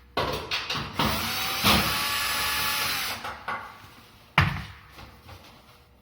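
Cordless drill-driver working screws out of an electric range's panel: a few short trigger blips, then one steady run of about two seconds as the motor spins up. A single sharp knock follows about four seconds in.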